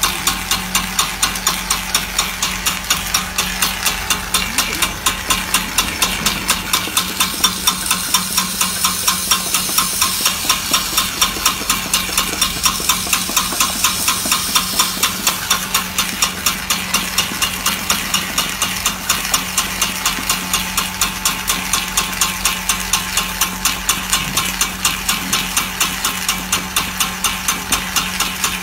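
Small electric-motor-driven puffed-snack extruder running while extruding corn puffs: a steady machine hum with a hiss and a rapid, even ticking, about four or five ticks a second.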